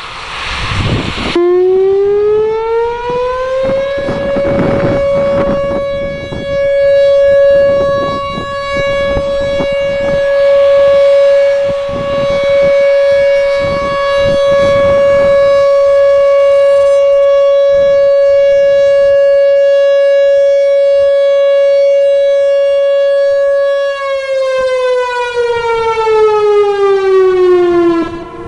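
Whelen 4004 outdoor warning siren sounding a steady alert. It winds up over a couple of seconds to one held tone, holds it for about twenty seconds, then winds down near the end. Wind buffets the microphone throughout.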